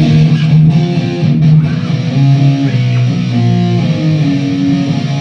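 Rock band playing loud, sustained electric guitar and bass chords through the PA, the chords changing every half second or so.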